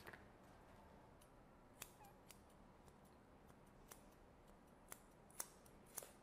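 Grooming scissors snipping the hair on a Yorkshire terrier's chin and jaw: about six short, crisp snips at uneven intervals, the loudest near the end.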